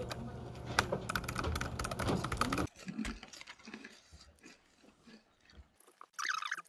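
Typing on a low-profile pantograph (scissor-switch) keyboard: a run of light, irregular key clicks. For the first couple of seconds it sits over a louder busy background with a steady hum, which cuts off suddenly; the clicks go on quietly after that. A short higher-pitched sound comes near the end.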